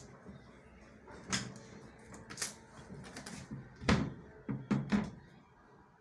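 Knocks and clunks of a front-loading washing machine's top panel being worked loose and lifted off, five or so separate knocks with the loudest about four seconds in.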